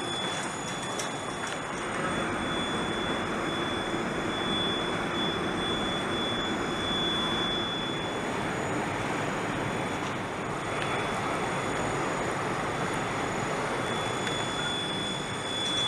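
Steady mechanical rushing noise of a large assembly hall, with a thin high-pitched whine that drops out for several seconds about halfway through and returns near the end.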